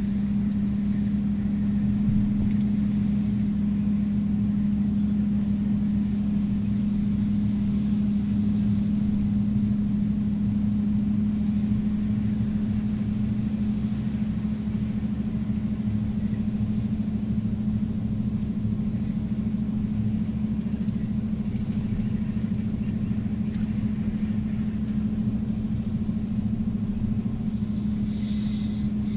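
A vehicle's engine and drivetrain running at a steady drone, heard inside the cabin while driving over beach sand, with a strong constant low hum.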